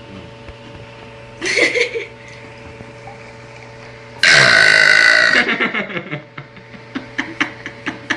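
A teenage girl burping: a short burp about a second and a half in, then a long, loud burp about four seconds in that trails off into a rattle.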